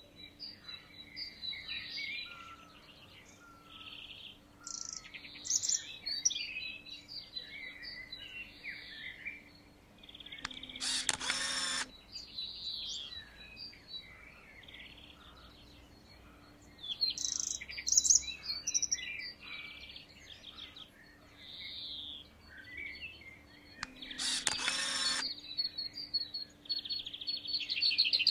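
Several small birds chirping and singing in overlapping short phrases. Twice, about thirteen seconds apart, a louder, harsher call lasting a second or so cuts through.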